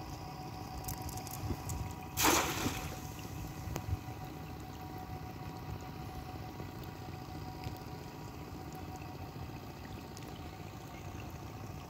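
A thrown cast net hitting the water with a brief splash about two seconds in, then steady outdoor background with a faint steady hum.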